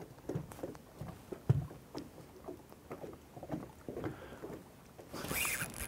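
Faint, irregular knocks and taps of handling aboard a bass boat while fishing, with a brief louder rush of noise about five seconds in.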